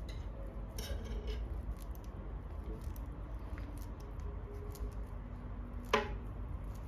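Fingers handling a small metal coaxial connector and the loose wire strands of the cable end: faint rustling and scratching with scattered small ticks, and one sharp click about six seconds in, over a low steady rumble.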